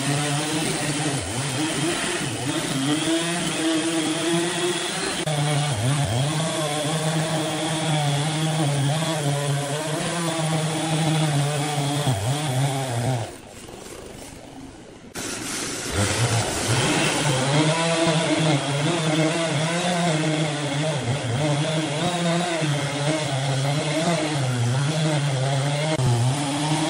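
Large gas chainsaw running under load while cutting into a big log, its engine pitch wavering up and down as it works through the wood. About halfway through, the saw sound drops away for about two seconds, then comes back.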